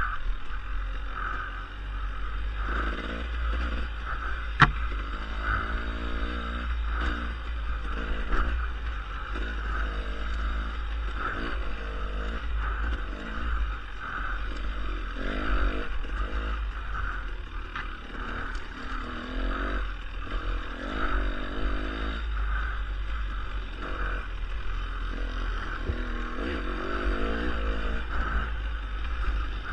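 Dirt bike engine running under load on a trail ride, its revs rising and falling every second or two over a steady low rumble, with one sharp knock about four and a half seconds in.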